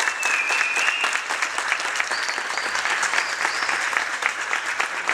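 Audience applauding: many hands clapping steadily, with a few brief high-pitched calls from the crowd over it.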